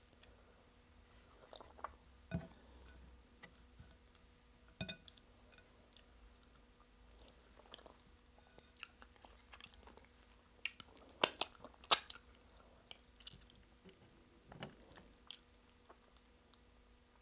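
Close-up mouth sounds of a person eating starch with egusi soup: quiet chewing with scattered wet smacks and clicks, and two loud sharp smacks about two-thirds of the way through.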